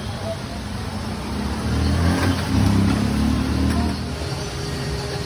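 Motor traffic running steadily, with one vehicle's engine swelling louder for a couple of seconds in the middle as it passes.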